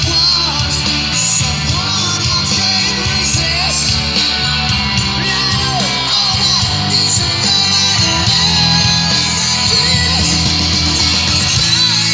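A rock song with singing and guitar, played loud through a car audio kit's Hurricane 6-inch triaxial and 6x9 speakers, with a heavy bass line.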